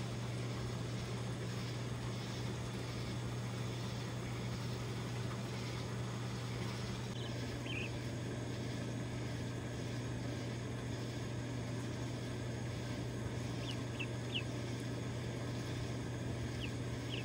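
A steady low hum with a few short, high peeps from three-week-old guinea keets, a handful of them coming near the end.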